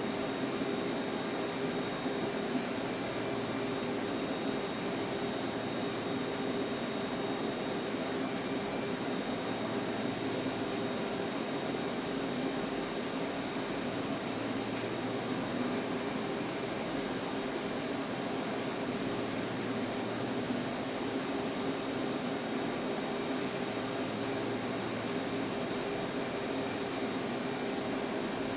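Steady machine hum and hiss with a few constant tones and a faint high whine, unchanging throughout.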